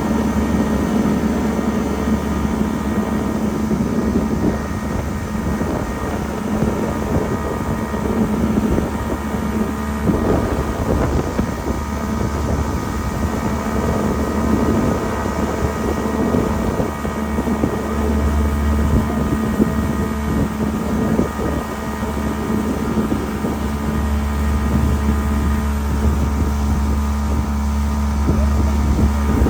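Steady rumble of wind buffeting the microphone and moving river water on a raft, with a steady hum underneath.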